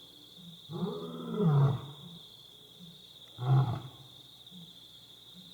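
Lioness roaring: one longer call about a second in, rising and then falling in pitch, followed by a single short, loud grunt about three and a half seconds in, as in the grunting end of a roaring bout. A steady high-pitched whine runs underneath.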